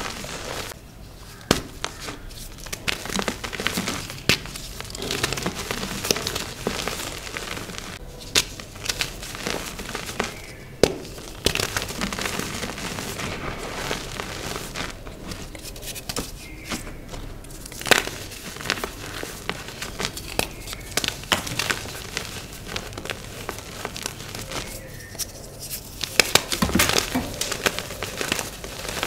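Block of dyed, reformed gym chalk being crushed and crumbled, giving irregular crunching with sharp snaps now and then.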